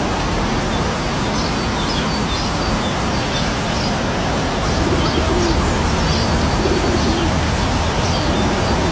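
Waterfall rushing steadily, with birds chirping repeatedly over the water noise and a few low cooing calls near the middle.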